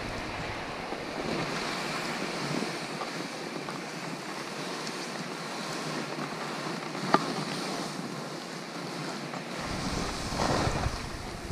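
Skis hissing as they slide through powder snow, with wind buffeting the microphone. There is a single sharp click about seven seconds in, and the rush swells near the end.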